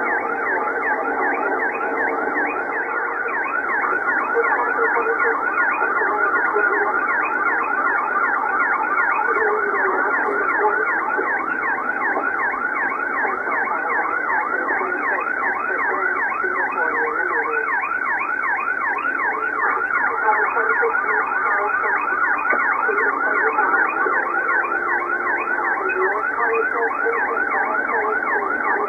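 Police car siren on a rapid yelp, its pitch sweeping up and down several times a second without a break, picked up by the pursuing cruiser's own dashcam.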